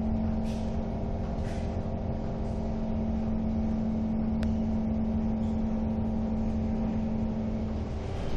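Inside a Kawasaki Heavy Industries C151 metro train car: a steady electrical hum over a low rumble, with a single sharp click about halfway through. The hum fades near the end.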